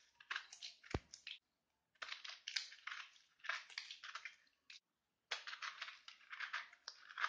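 Knife cutting through pomegranate rind and fruit, in several bouts of crisp, crunchy crackling separated by short pauses. One low thump about a second in.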